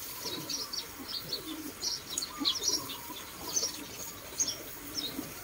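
Birds chirping: many short high calls in quick, overlapping runs, with scattered lower short notes beneath them.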